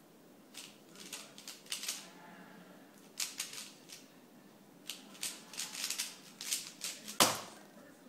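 Dayan ZhanChi 3x3 speed cube being turned fast, its plastic layers clicking in quick runs with short pauses between them. About seven seconds in comes one loud sharp knock as the solve ends and the timer is stopped.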